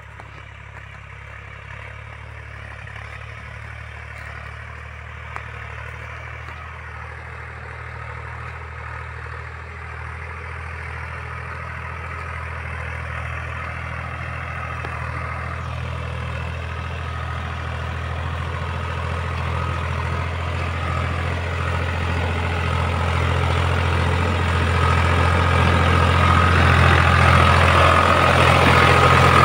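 YTO X454 tractor's diesel engine running steadily as it pulls a trailing disc harrow, growing steadily louder as the tractor approaches.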